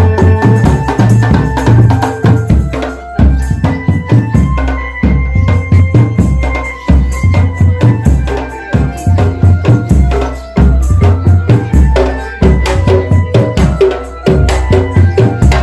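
A marching drum band playing: bass drums and snare drums beating a fast, continuous rhythm, with some held pitched notes over the drums.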